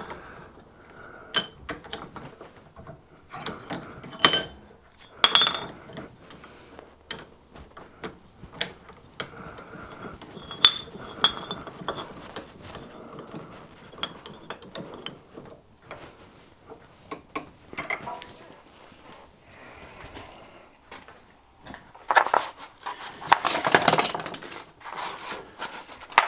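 Metal clinks and knocks as a small cast steam-engine cover plate and steel hand tools are handled in a bench vice, with scattered sharp ringing taps. A louder scraping noise comes near the end.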